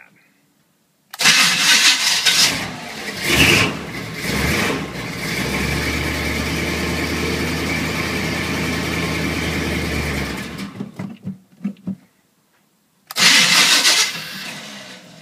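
1986 Chevrolet K5 Blazer's 350 V8, with headers and a Flowmaster exhaust, cranked on the starter against a bad flywheel. It catches after a couple of seconds, runs steadily for about five seconds, then sputters and dies. It is cranked again near the end. It runs poorly on old, bad gas through a partly plugged Quadrajet carburetor.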